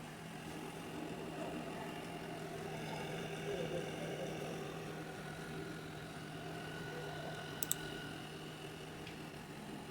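A steady mechanical hum with a faint haze of noise, and a quick double click about three-quarters of the way through.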